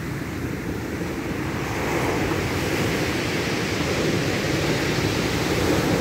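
Sea surf breaking and washing up a pebble beach, a steady rush of water that grows louder about two seconds in as a wave comes in.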